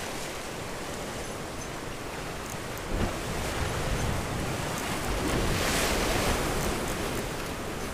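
Sea waves washing ashore, with wind rushing on the microphone. The wash swells about three seconds in and again more strongly around six seconds.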